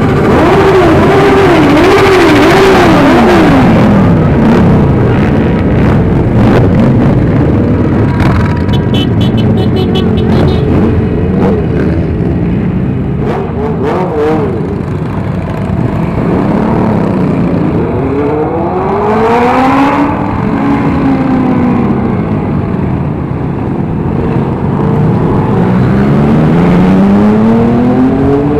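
Motorcycle engines of a large group ride running and revving as bikes pass and pull away, their pitch rising and falling with the throttle. Twice, in the second half, an engine accelerates with a rising pitch.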